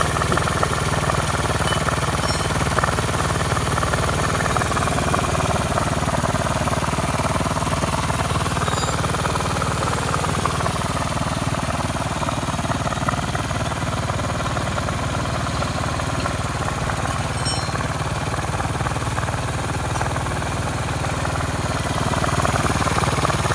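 Motorcycle engine running steadily while driving an air compressor, a constant mechanical drone with no pauses.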